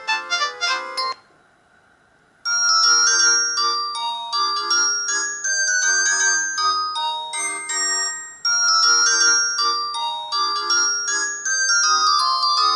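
Alcatel OT-117 mobile phone playing its built-in ringtones: one electronic melody of quick notes stops about a second in, and after a short pause a new melody starts, looping back to its beginning about six seconds later.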